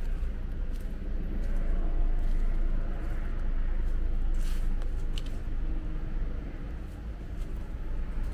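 Outdoor ambience: a steady low rumble, with a few light crunches of footsteps on a leaf-covered gravel path.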